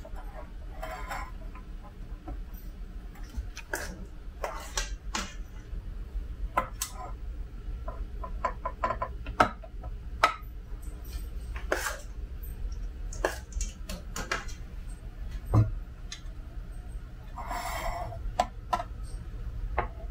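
Metal spoon clinking and scraping against a mixing bowl and a metal muffin tin as batter is spooned into the cups: irregular sharp taps and clicks, with a longer scrape near the end.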